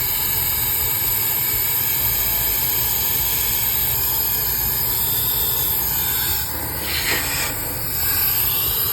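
Small high-velocity blower tool running steadily, a loud rush of air being forced through a gas furnace's heat exchangers to blow out the soot built up inside them. The rush dips and changes briefly about six and a half seconds in, then picks back up.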